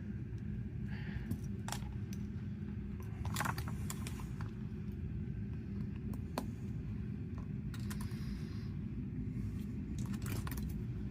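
Small metal clicks and clinks of a watch and tools being handled on a work surface, in scattered single ticks with a couple of busier clusters of jingling, over a steady low hum.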